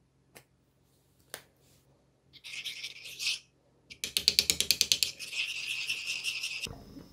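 Two light clicks from a plastic squeeze bottle, then a metal spoon stirring dressing in a marble bowl: a short scraping start, then quick rhythmic scraping and clinking against the stone, about eight strokes a second, stopping abruptly near the end.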